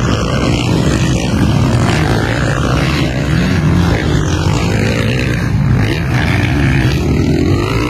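Motocross dirt bike engines running hard at racing revs, a loud continuous drone whose pitch wavers up and down as the riders work the throttle.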